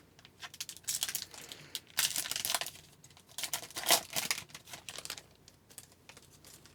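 Crinkling and tearing of a hockey card pack's foil wrapper as it is ripped open, in irregular bursts with a loud spell about two seconds in and another about four seconds in, fading toward the end.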